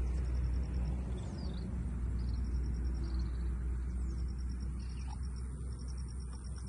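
Birds chirping in quick high trills, with a few short falling whistles, over a steady low rumble.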